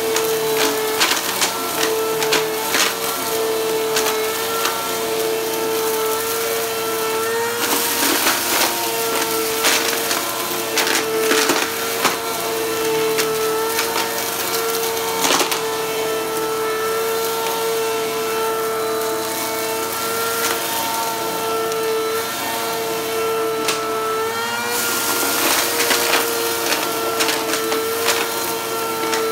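Upright vacuum cleaner running over a shag rug: a steady motor whine with frequent sharp clicks and rattles of small hard debris such as sequins and beads being sucked up. Twice the suction hiss grows louder for a few seconds.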